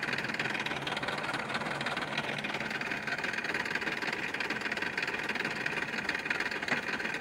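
Massey Ferguson 1035 DI tractor's three-cylinder diesel engine running steadily while hitched to a heavily loaded trolley stuck in mud.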